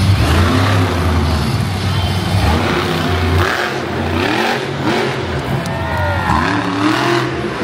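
Monster truck engine revving hard in bursts, its pitch rising and falling repeatedly as the truck drives up onto and over a row of crushed cars, echoing in a large arena.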